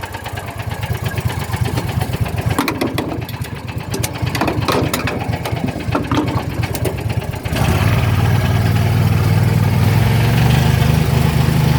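Landmaster's small engine idling with a rapid, even pulse; about seven and a half seconds in it speeds up and runs louder. A few scattered clicks and knocks sound over the idle in the middle.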